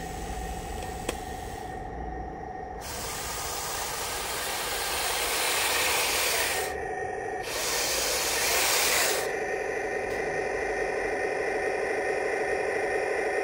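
Radio-controlled M41 Bulldog model tank running as it drives across grass: a steady whirring drone with a few held tones, and two louder hissing stretches lasting a few seconds each, the first about three seconds in.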